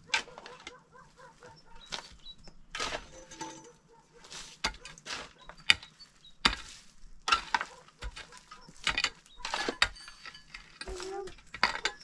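Long-handled shovel and hoe digging and scraping stony soil, in irregular scrapes and strikes about once a second.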